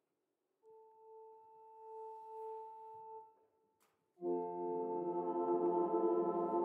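Church organ: one soft held note, then about four seconds in a louder, full sustained chord begins.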